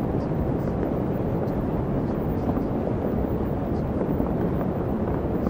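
Steady, even rushing noise, heaviest in the low end and without any rhythm or swell. It is the masking noise bed of a subliminal audio track.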